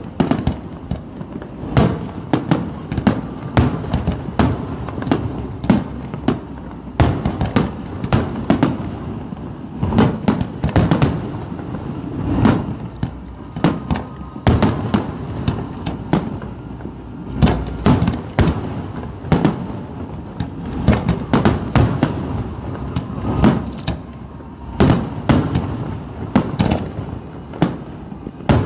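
Fireworks display: aerial shells bursting one after another in the sky, with sharp bangs coming in rapid strings, often several a second.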